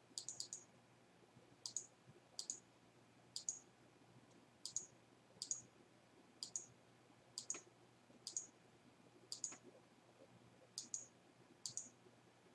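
Faint computer mouse button clicks, mostly in quick pairs, about a dozen at irregular intervals of roughly a second.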